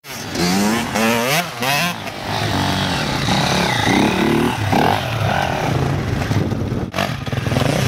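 Dirt-bike engines revving, the pitch swinging sharply up and down with the throttle, then running at steady high revs, with a brief drop about seven seconds in.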